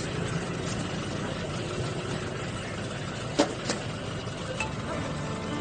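A car engine running at idle amid steady street noise, with two sharp clicks about three and a half seconds in.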